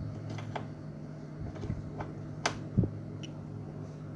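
Scattered clicks and knocks from hands working the controls and cable plugs of a Yamaha EMX5014C powered mixer, about five in all, the loudest a dull knock a little under three seconds in. A steady low hum runs underneath.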